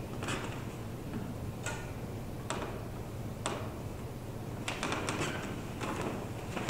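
Scattered sharp clicks and knocks of a person moving about: footsteps on a wooden floor and small handling noises, bunched together about five seconds in, over a steady low hum.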